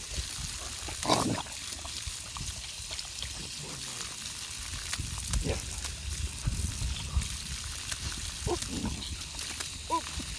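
Water spraying from an outdoor spigot onto grass, a steady hiss, while a Great Dane puppy paws and digs in the muddy puddle. A few short vocal sounds break in.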